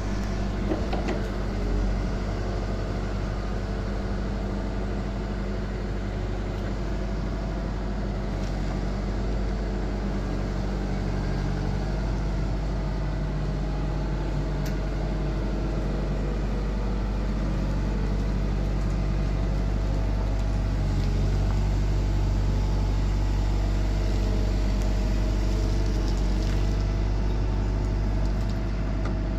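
Caterpillar M313D wheeled excavator's diesel engine running steadily.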